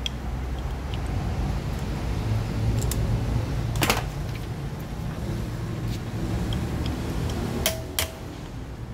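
Two sharp metal taps near the end, each leaving a short ring, from a steel rod being struck against the shaft hub of a car air-con compressor as the pulley is being seated back on. A few lighter metal clicks come earlier, one sharp knock about four seconds in, and a steady low workshop hum runs underneath.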